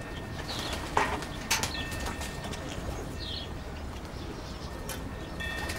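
Pigeons flying close by: a couple of sharp wing flaps about a second in, then a steady chord of high whistling tones held for a few seconds.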